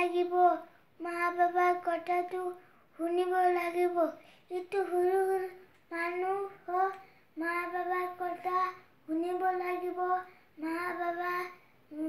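A boy chanting in a sing-song voice: a string of phrases about a second long, each held on a nearly level pitch, with short breaks for breath between them. This is the melodic delivery of a Bengali waz, an Islamic sermon.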